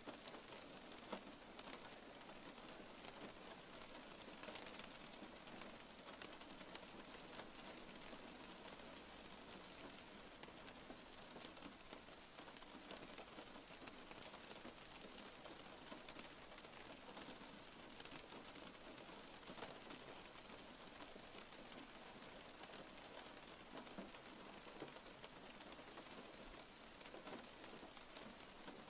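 Faint, steady rain with a fine patter of individual drops.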